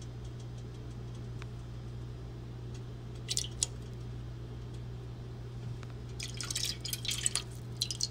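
Fragrance oil poured from a glass bottle into melted candle wax in a metal pouring pitcher: drips and light clinks of glass against the pitcher, a couple about three seconds in and a quick cluster from about six seconds, over a steady low hum.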